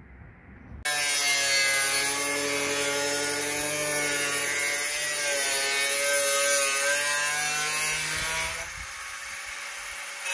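Power saw cutting vent openings into a car bonnet panel. A steady motor note with a slightly wavering pitch starts suddenly about a second in, then stops near the end, leaving a quieter hiss.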